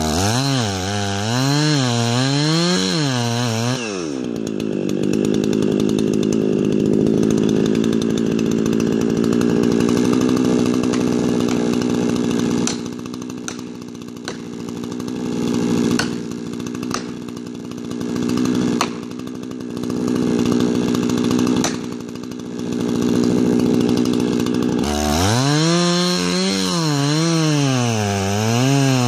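Chainsaw cutting into a large beetle-killed ponderosa pine trunk. The engine pitch swings up and down for the first few seconds, then drops and holds lower and steadier under load for about twenty seconds, with several sharp snaps partway through, and swings up and down again near the end.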